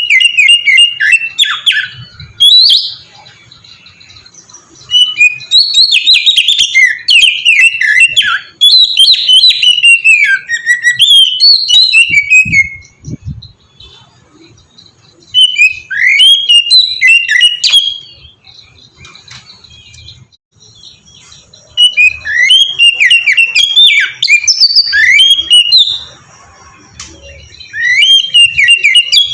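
Oriental magpie-robin (kacer) singing in bursts of rapid, varied whistled and chattering phrases, about five bursts broken by short pauses.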